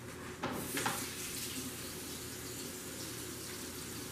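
Kitchen sink tap turned on about half a second in, then water running steadily into the sink to rinse a teaspoon.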